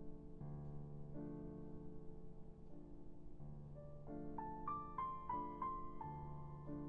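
Quiet background piano music: held chords that change every second or so, with a short higher melody coming in about four seconds in.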